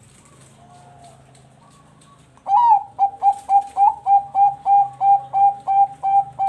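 Zebra dove (perkutut bangkok) singing. After faint cooing, about two and a half seconds in it breaks into a loud, rapid series of short cooing notes, about three a second.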